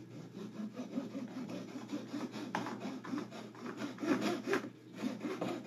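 Fine-toothed back saw cutting through a small wooden dowel by hand, a steady run of short back-and-forth rasping strokes as it slices off a thin ring.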